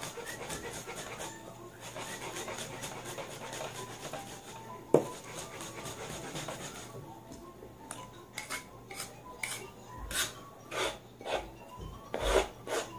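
Garlic being crushed with a wooden pestle on a plastic cutting board: quick, even tapping at about five strokes a second at first, then a single sharp knock about five seconds in. Slower, louder knocks follow near the end.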